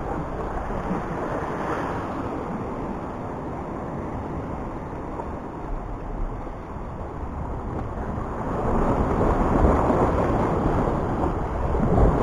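Wind buffeting the microphone, mixed with sea surf washing against the rocks below, growing louder from about eight seconds in.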